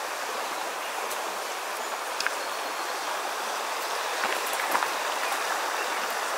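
Small creek running over a shallow riffle: a steady rush of flowing water, with a few faint clicks.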